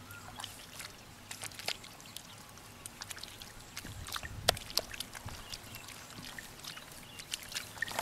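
Bare hands scooping and slapping wet mud and muddy water: irregular wet splats and squelches, the loudest about four and a half seconds in.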